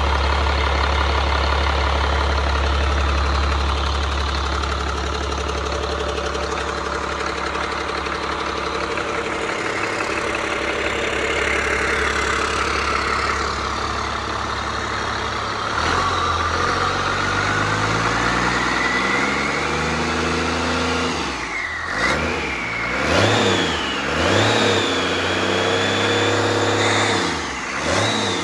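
Caterpillar C7 inline-six turbodiesel engine running: a steady idle at first, then revved up and down several times over the last several seconds, with turbocharger whine rising and falling with each rev.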